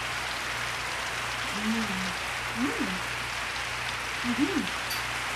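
A woman making three short, pitched 'mmm' sounds of enjoyment with her mouth full while tasting food, over a steady background hiss.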